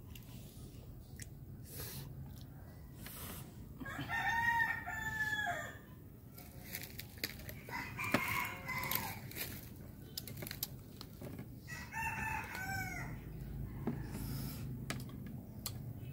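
A rooster crowing in the background: a long crow about four seconds in and a shorter, falling one about twelve seconds in, with small clicks and rustles between them.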